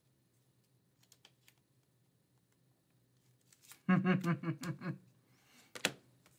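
Faint scattered clicks of trading cards being handled. About four seconds in, a man's wordless voice sounds for about a second, followed by a single sharp click.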